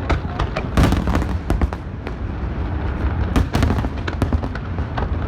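Aerial fireworks bursting in quick succession: a dense run of sharp cracks and booms over a steady low rumble, with the loudest bursts about a second in and another cluster past three seconds.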